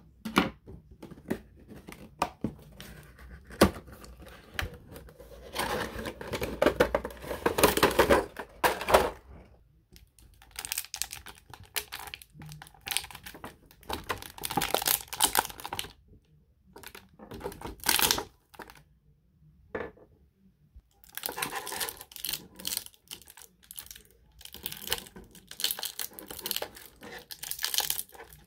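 Crinkling and tearing of a thin clear plastic bag and packaging being pulled open to free an action figure, in irregular bursts with short pauses and scattered clicks.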